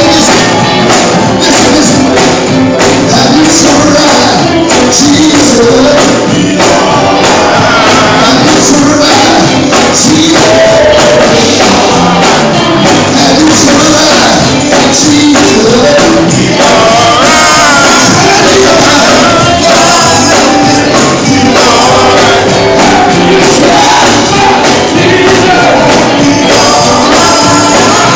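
Loud gospel music with a tambourine and singing voices.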